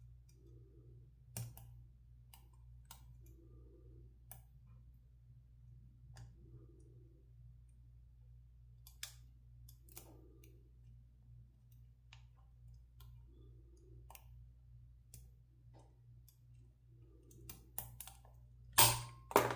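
Faint, scattered clicks of a pick and tension tool working the pins of a Sargent military brass padlock during single-pin picking, with a few louder metallic clicks near the end. The picker suspects the lock holds spool pins, from the bounce-back he feels.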